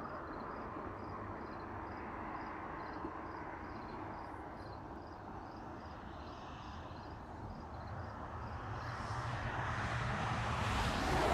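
Outdoor background rumble with a vehicle approaching, growing louder over the last few seconds and passing close near the end.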